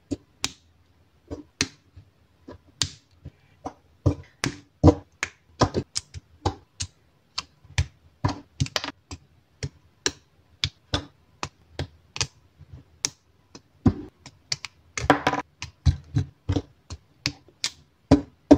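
Small snap-fit plastic model-kit parts clicking and snapping together as they are pressed into place, a run of sharp, irregular clicks with a quick rattling cluster of them about fifteen seconds in.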